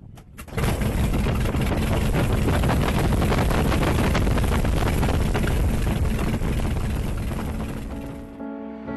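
De Havilland DH.82A Tiger Moth's four-cylinder Gipsy Major engine catching after a hand-prop start: a few sputters, then it fires up about half a second in and runs steadily. The sound fades near the end.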